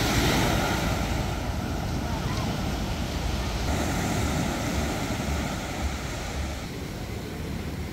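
Surf breaking in the shallows and washing over a stranded boat, a loud rush of water that eases off after about four seconds, with wind buffeting the microphone.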